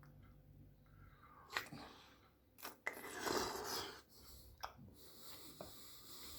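A person eating a raw oyster, making wet mouth noises and chewing. There are a few sharp clicks, and the loudest wet stretch comes about three seconds in.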